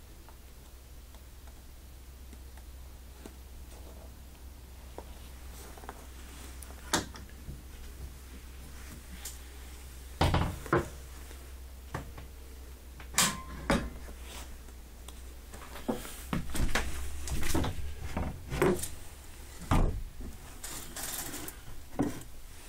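Scattered knocks, clicks and clatters of wooden and metal fittings being handled inside a small caravan, coming thicker from about halfway through, over a low steady hum.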